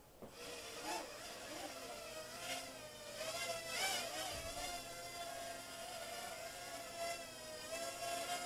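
Mini quadcopter's motors and propellers whining, the pitch wavering up and down as the throttle changes.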